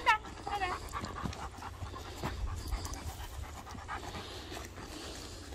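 A German Shepherd-type dog panting hard, in quick repeated breaths. At the very start there is a brief high whine that falls in pitch, the loudest moment.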